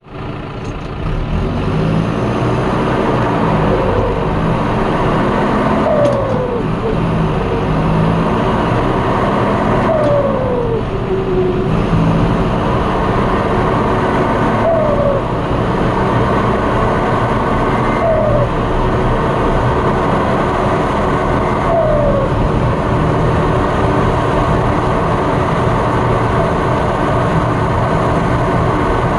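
John Deere 6230 Premium tractor's turbo diesel engine running under way, heard from inside the cab, with its turbo (VGT turned off) giving a short whistle that falls in pitch several times as the throttle eases off.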